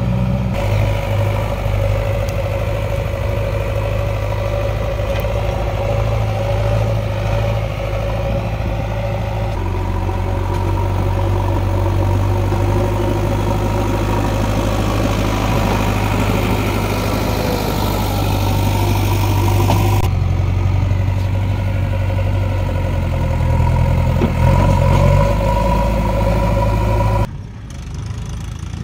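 JCB 3DX backhoe loader's diesel engine running steadily as the machine works the dirt track. Its note changes abruptly several times. Near the end it drops suddenly to a quieter engine sound.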